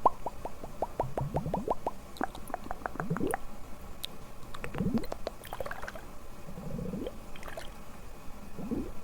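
Close-miked wet mouth sounds: quick runs of tongue and lip clicks mixed with squelching, sucking sounds that rise in pitch, about every two seconds.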